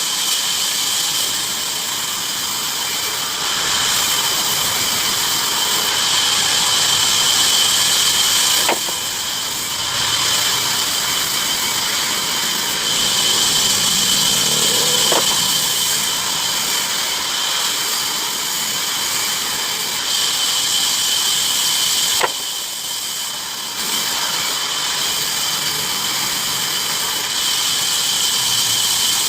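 Bandsaw cutting wood: a steady high-pitched whine over a loud rushing hiss, dipping briefly twice.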